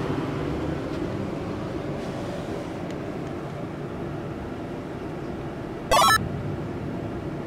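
Steady low rumble of a school bus's engine and city traffic, heard from inside the bus. About six seconds in comes one short, loud, sharply rising squeak.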